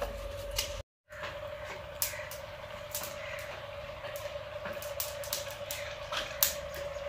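Wood fire crackling in a clay chulha under an iron tava, irregular pops and snaps, with a steady hum underneath. One sharper click about six seconds in stands out.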